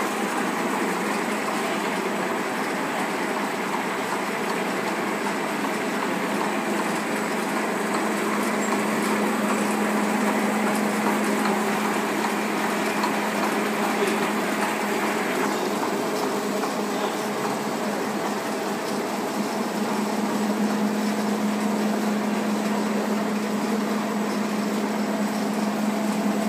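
Two-side gusset plastic bag making machine running, a steady mechanical noise with a constant hum as film feeds over its rollers.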